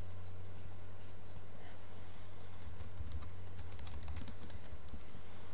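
Typing on a computer keyboard: a short run of separate key clicks, thickest about halfway through, over a steady low hum.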